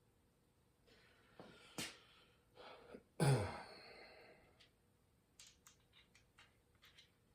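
Small clicks and knocks of engine valve-train parts being handled, with one louder thump about three seconds in followed by a run of light ticks.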